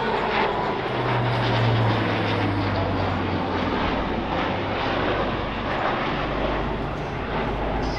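Airbus A400M Atlas's four Europrop TP400-D6 turboprop engines droning steadily as the aircraft flies past, with a low hum standing out from about a second in until about three seconds.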